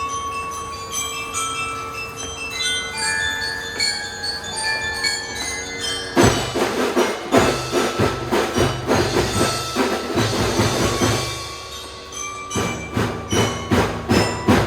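Children's marching drum band playing. A melody on bell lyra (glockenspiel-type bells) is heard alone at first, then the drums come in about six seconds in, drop back for about a second near the end, and start again.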